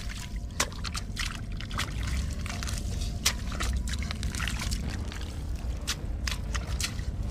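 Bare hands scooping and sloshing through a shallow muddy puddle, with irregular wet splashes and squelches, over a steady low rumble.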